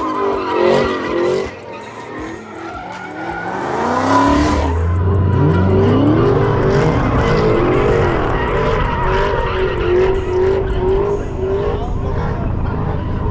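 Car engine revving up and down over squealing, skidding tyres. A deep, heavy engine rumble joins about four seconds in and holds.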